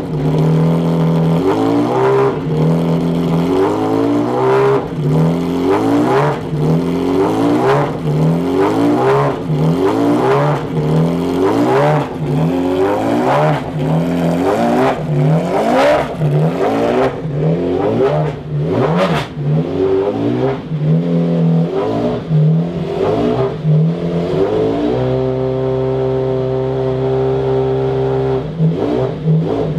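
McLaren F1 GTR Longtail's BMW V12 race engine revved in quick repeated blips, about one a second, each rising and dropping back. Near the end it settles to a steady idle for a few seconds, then the blips start again.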